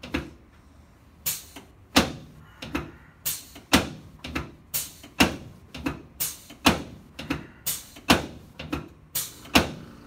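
Rapid run of sharp clacks from a chiropractic table as the chiropractor presses rhythmically on the patient's upper chest: one knock at the start, then a steady run of about three a second from just after a second in.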